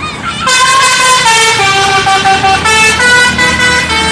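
Indonesian bus 'telolet' multi-tone air horn playing a tune: loud held notes, several pitches at once, stepping from note to note, starting about half a second in.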